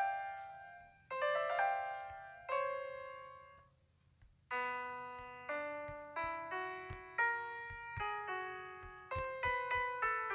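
Background piano music: a slow melody of single notes that ring and fade, with a brief pause about four seconds in before the notes resume at a quicker pace.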